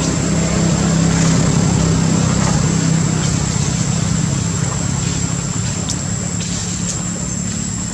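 A motor running steadily with an even low hum, with a thin high steady tone over it.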